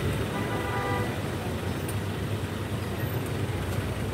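Small box truck's engine running as it pulls away along the street, with a steady low rumble. A brief vehicle horn toot sounds about half a second in.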